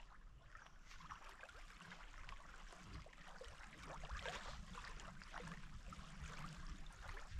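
Faint lake water lapping and trickling at a sandy shore, with small irregular splashes and ticks.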